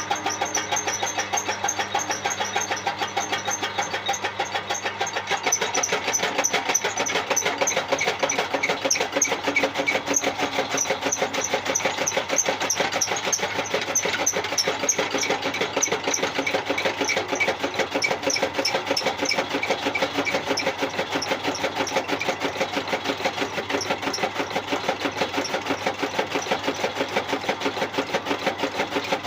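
Motor-driven chaff cutter running steadily with a fast, even clatter.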